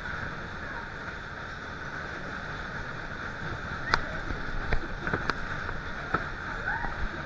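Steady rushing rumble of a fairground ride in motion, heard from on board with wind on the microphone. A few sharp clacks come from about four seconds in.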